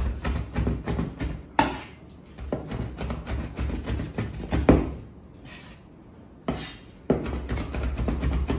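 Rapid chopping of fish and shrimp with a large curved mincing knife, the blade hitting the cutting board several times a second, with a short pause a little past the middle.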